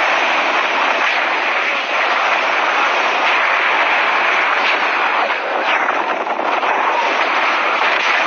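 Loud, steady rush of wind over the helmet camera's microphone during a fast speed-riding descent, the skier flying and skiing under a small parachute wing, with a few faint crackles.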